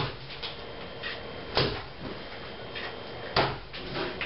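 Axe blows chopping into wood: three sharp strikes, one every second and a half to two seconds, with lighter knocks between.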